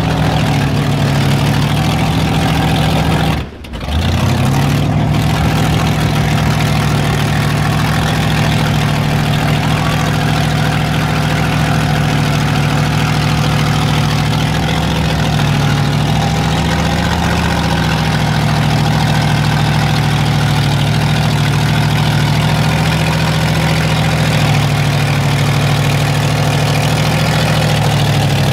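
Mud bog truck engine running steadily at a low, even speed, with a slight rise in pitch about halfway through. The sound cuts out for a moment a few seconds in.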